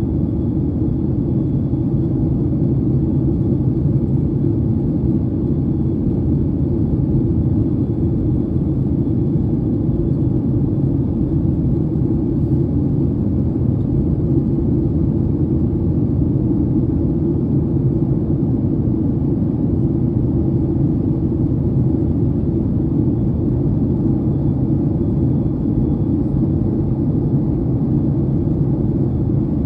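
Steady low rumble inside a jet airliner's cabin in flight: engine and airflow noise heard at a window seat.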